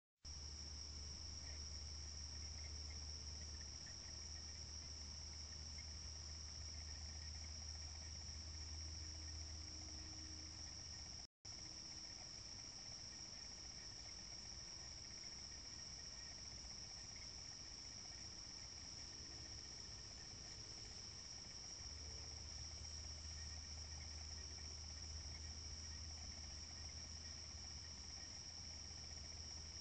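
Night chorus of crickets: a faint, steady high-pitched chirring, with a low hum under it for much of the time. The sound cuts out for a split second about eleven seconds in.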